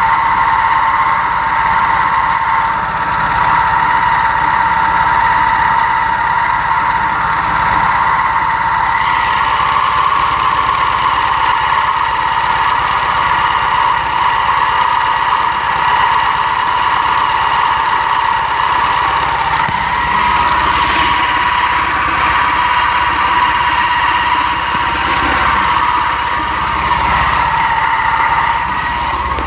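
A vehicle's clutch squealing with a steady high-pitched tone over the running engine, with a shift in the tone about nine seconds in.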